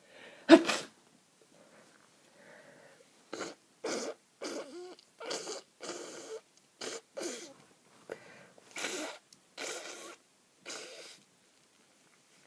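A person with a heavy, snotty head cold sneezes once, loudly, about half a second in. About a dozen short, wet nose blows and sniffs follow through a congested nose.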